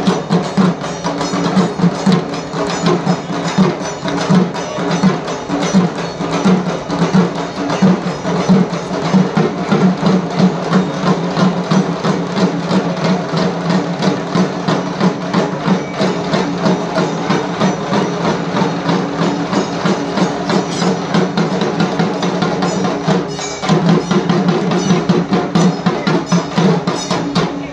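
Several dhak drums, large Bengali barrel drums, beaten with sticks in a fast, dense, steady rhythm, with a brief break near the end before the beat picks up again.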